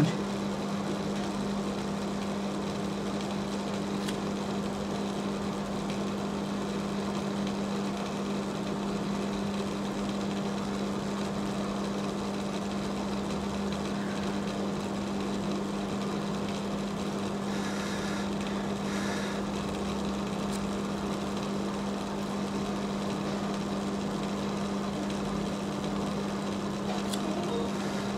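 A steady low machine hum with a single strong tone and fainter overtones, unchanging in level.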